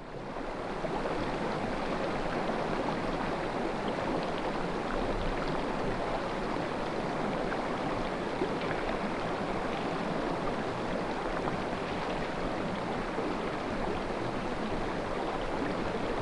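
A steady rushing noise that holds evenly throughout, with no distinct events.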